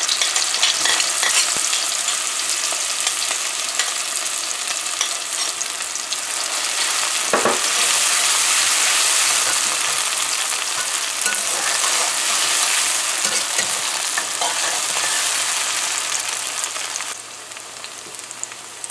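Chopped onion and scallion sizzling as they fry in hot oil in a metal pot, with a metal spoon stirring and now and then knocking against the pot. The sizzle dies down near the end.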